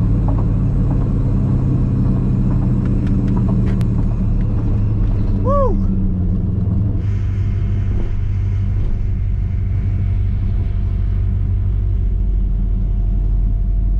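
Stock 6.0 L LQ4 V8 with shorty headers rumbling steadily at low speed, heard inside the S10's cab, with no revving. A short rising-and-falling tone sounds about halfway through.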